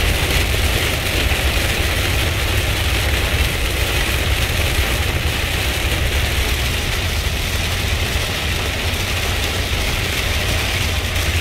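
Steady low rumble of a vehicle driving on a wet road in heavy rain, heard from inside the cab, with an even hiss of rain on the roof and windshield over it.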